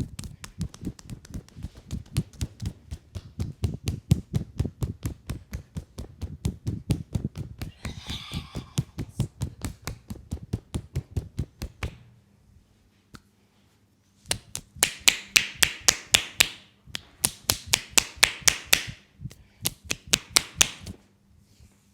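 Hands giving a fast percussive tapping massage, about six strokes a second, dull and thudding at first. After a short pause the strokes come as two bursts of louder, sharper slaps, then softer taps.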